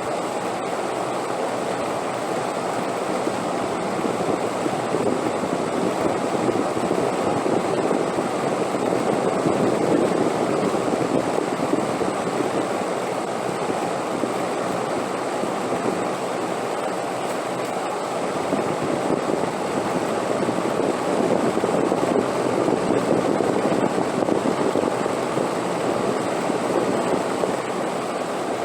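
Steady wind blowing, a continuous rushing that slowly swells and eases, stronger about a third of the way in and again near the end.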